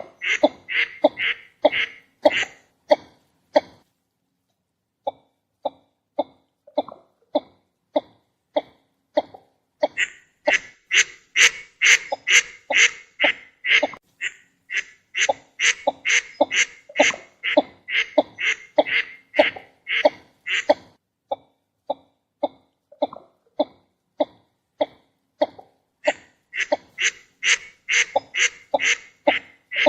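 Northern shoveler duck calling in a rapid series of short, clipped calls, about two or three a second, with a silent break of about a second near the four-second mark.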